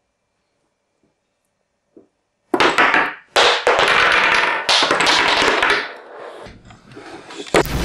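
A light knock of a wooden chess piece on the board about two seconds in. Then three loud crashing bursts of about a second each, with quieter rustling after them. A loud blast begins near the end.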